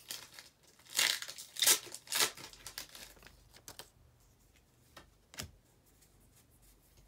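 Foil trading-card booster pack wrapper crinkling and tearing as it is opened, with a few loud rustles in the first couple of seconds and then quieter handling. A single sharp click about five seconds in.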